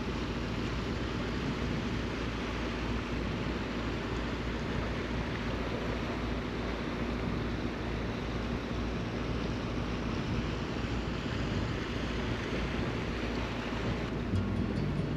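Steady rushing of wind and water with a low engine hum underneath, as from a motor boat under way.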